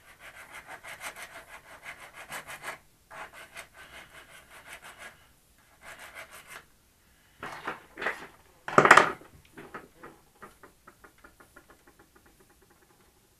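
Diamond file scraping back and forth on a thin metal rod in quick short strokes, in several bouts, roughening the metal to take off oxides before soldering. About nine seconds in comes a louder clatter, followed by a run of fainter ticks that fade away.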